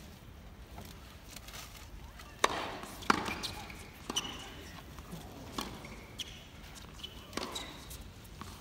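Tennis rally heard from the stands: about six sharp knocks of racket strikes and ball bounces on the hard court, starting about two and a half seconds in, over a low crowd background.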